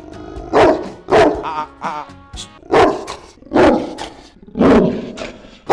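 Tibetan Mastiff barking angrily, about six loud barks in a row: an aggressive, territorial challenge to a stranger.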